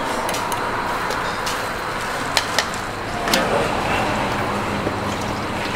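Steady traffic noise from the street, with a few sharp knocks and clinks standing out, two of them close together about two and a half seconds in.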